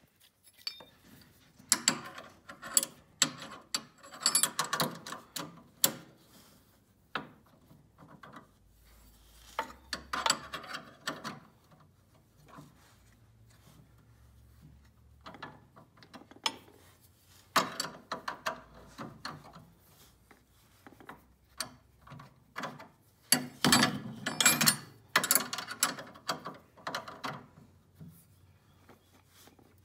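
A wrench tightening the nut on the wheel-height adjustment bolt of a Troy-Bilt walk-behind mower: metal clicking and clinking in short runs, with brief pauses between.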